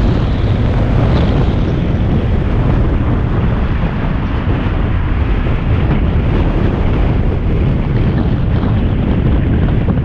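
Steady wind rush on the microphone of a camera on a moving car, over the low rumble of the car driving on the road.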